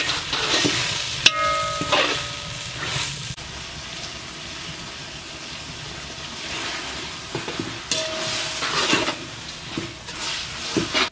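Chopped meat and tomatoes sizzling as they fry in a large aluminium pot, stirred with a spatula that scrapes the bottom in repeated strokes. Twice, about a second in and again near the end, the spatula clinks against the pot with a short metallic ring.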